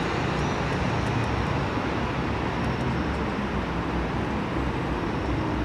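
Steady hum of city traffic from the streets below, with no single vehicle standing out.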